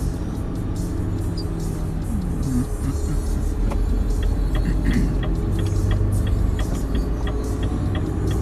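Truck's diesel engine running at low speed in the cab, its pitch gliding as it pulls through the roundabout. From about halfway a light regular ticking, about three a second, joins it: the turn-signal indicator for leaving the roundabout.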